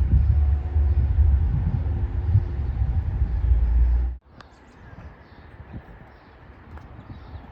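Loud low rumble of a train with a faint steady hum above it, cut off abruptly about four seconds in. After that only a quiet background with a few faint clicks.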